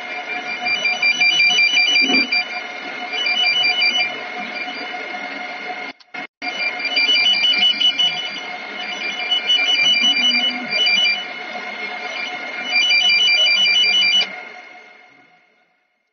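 Handheld cable tracer probe's speaker sounding its electronic tracing tone, a warbling beep that swells and fades several times as the probe is moved among the patch cables, cutting out briefly about six seconds in and fading away near the end. The tone grows loudest as the probe comes near the cable carrying the tone generator's signal.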